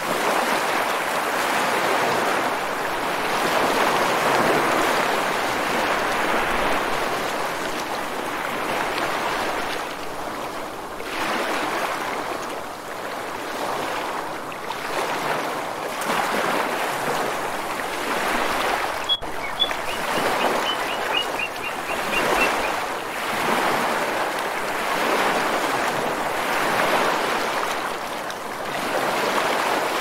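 Ocean surf washing ashore in a steady rush that swells and ebbs every few seconds. About two-thirds of the way through, a bird gives a brief run of high notes above the waves.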